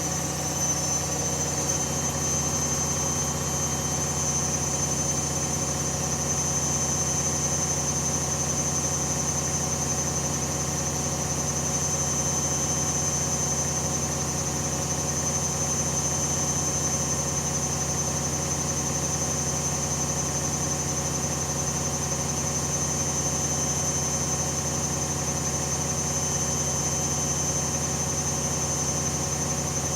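Hoover Dynamic Next washing machine running its drum at a steady high speed, a spin, with a constant motor hum and a high-pitched whine.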